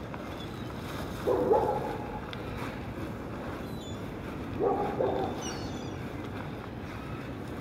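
A dog barks twice in short bursts, about a second in and again near five seconds, over steady wind noise on the microphone.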